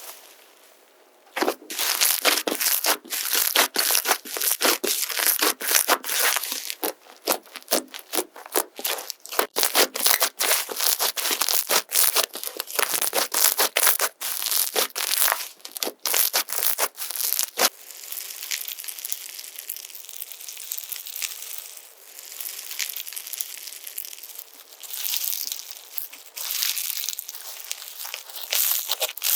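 Slime being worked by hand, giving dense, rapid crackling and popping; a little past halfway it eases into a quieter, more even crinkling.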